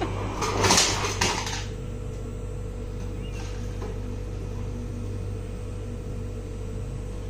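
Hotel ice-and-water dispenser pushed, dispensing for about a second and a half into a paper cup that already holds ice. After that, only a steady machine hum.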